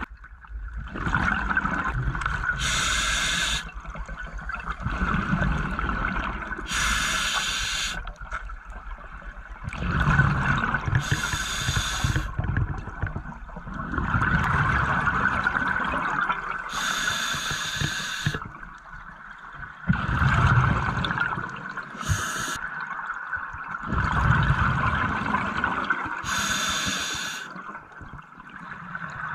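Scuba diver breathing through a regulator underwater: six short hissing inhalations, about one every four to five seconds, each followed by the low burble of exhaled bubbles.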